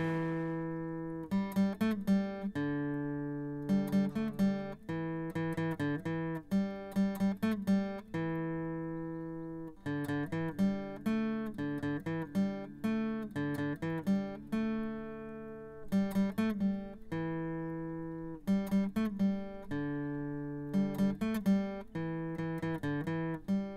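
Acoustic guitar music: single plucked notes and chords ringing out and fading, in an unhurried rhythm.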